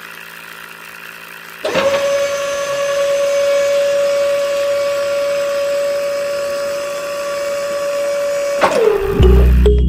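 Small electric motor of a homemade miniature drilling rig switching on suddenly and running with a steady high whine for about seven seconds, then winding down as it is switched off. Music comes in near the end.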